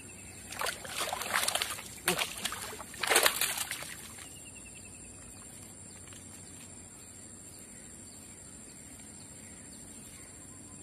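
A hooked snakehead thrashing and splashing at the water's surface as it is pulled in to the bank, in several loud bursts over the first four seconds, then the water goes still.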